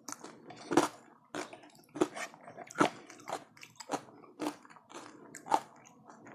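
A person chewing crunchy food taken from a spoon, with about eight sharp crunches at roughly half-second to one-second intervals; the loudest comes about a second in.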